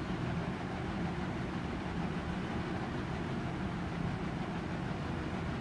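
Steady low rumble and hiss of kitchen background noise, even throughout.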